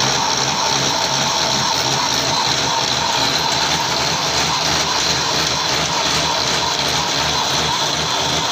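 Metal lathe running with a V-belt pulley turning in the chuck while a boring tool cuts its bore: a steady mechanical hiss with a faint high whine, unchanging throughout.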